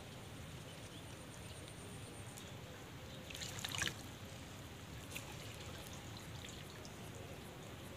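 Shallow swamp water splashing briefly about halfway through as it is stirred by a wading angler, over a faint steady background.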